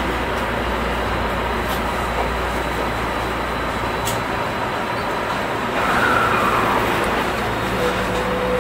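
Tokyo Metro 16000 series electric train running, heard from inside the driver's cab as it pulls out of an underground station into the tunnel: a steady rolling noise with low rumble. About six seconds in, a short whine slides downward, and near the end a steady hum comes in.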